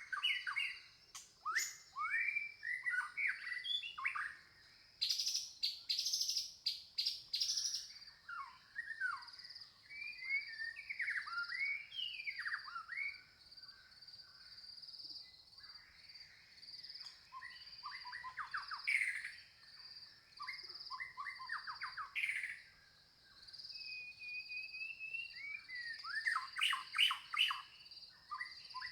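Several birds chirping, with many short, quick downward-sweeping notes in busy flurries, over a steady high-pitched pulsing trill.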